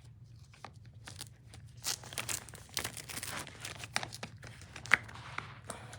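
Hook-and-loop (Velcro) fastener on a soft fabric toy car being peeled apart, in short irregular rips and rustles, with a few sharp clicks near the end.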